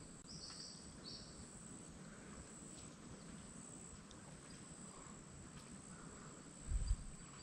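Quiet bush ambience: a steady high-pitched insect drone, with a short run of chirps about a second in. A brief low thump on the microphone comes near the end.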